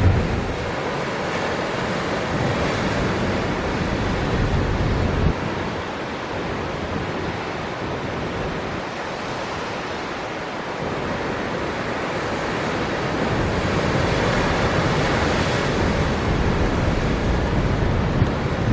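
Heavy storm surf breaking against coastal rocks: a dense, continuous wash of water noise that swells and eases. Gusts of strong wind buffet the microphone with a low rumble that comes and goes, heaviest in the first few seconds and in the last few.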